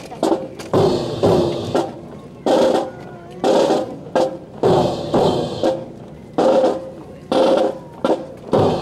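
A drum beating a steady marching time, about one beat a second, each beat sharp and briefly ringing.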